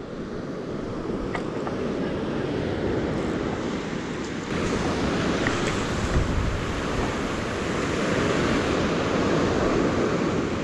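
Surf breaking and washing up a shingle beach: a steady rushing that swells about halfway through.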